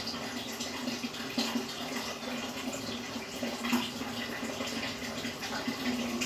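Aquarium water circulating and bubbling, a steady rush with small irregular plinks, over a steady low hum from the tank's pump.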